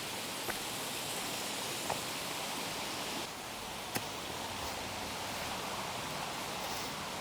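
Creek water rushing steadily over small cascades, with a few faint clicks through it.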